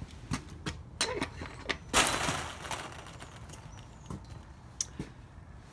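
Scattered knocks and clicks from footsteps and a chain-link gate being passed through, with a brief noisy burst about two seconds in.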